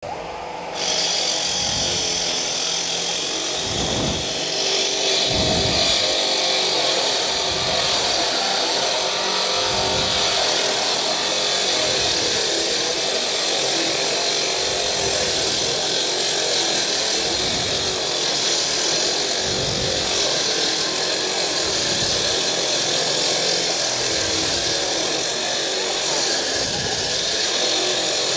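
Walk-behind concrete cutter with a 14-inch blade, driven by a 10 hp three-phase electric motor, running steadily as the blade cuts through a concrete slab. It is quieter for the first second, then holds at full level.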